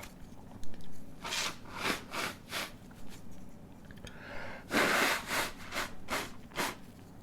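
A man sniffing and breathing hard through his nose between induced sneezes: a run of short sharp sniffs, a longer breathy burst about five seconds in, then a few more sniffs.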